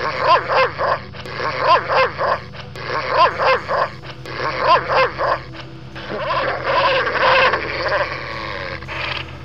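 German Shepherd barking in quick groups of two or three short barks, then from about six seconds in a longer unbroken stretch of dog vocalizing with a wavering pitch.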